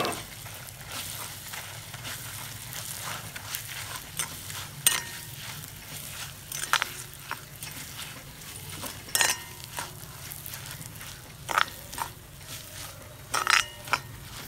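Ground mint-garlic chutney being stirred into a pan of hot tempering oil: a steady low sizzle, with a spoon scraping and clinking against the pan every couple of seconds.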